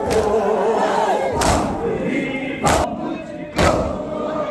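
A large crowd of mourners beating their chests in unison (matam), four sharp slaps about once a second, over a crowd of men chanting.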